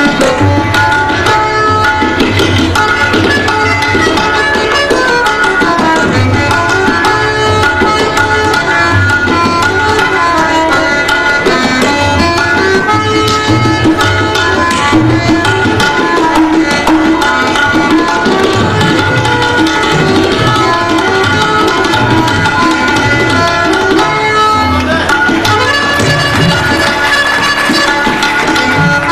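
Harmonium playing a fast melody of held, stepping reed notes, with tabla accompaniment: quick drum strokes and repeated deep bass strokes from the bayan.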